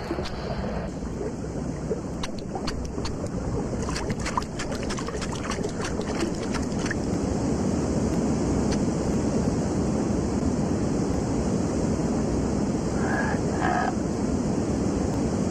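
Cartoon sound effect of rushing river water: a steady hiss that grows louder about halfway through, with scattered clicks in the first half.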